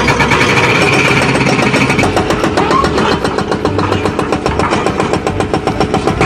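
Rapid, steady hammering of an excavator's hydraulic rock breaker over its running engine.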